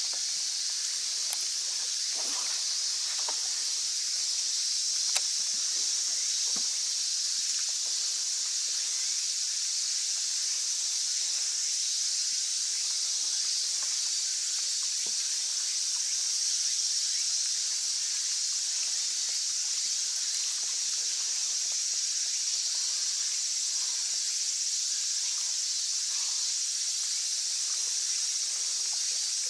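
Steady high-pitched shrilling of a summer insect chorus, with a few soft ticks in the first few seconds.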